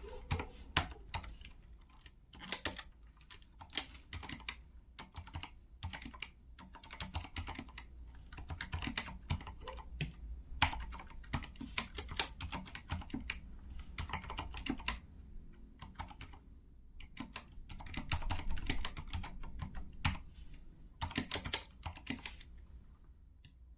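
Typing on a Corsair K70 LUX RGB mechanical keyboard with Cherry MX Silent Red linear switches: fast, uneven runs of soft, damped keystrokes with brief pauses between bursts.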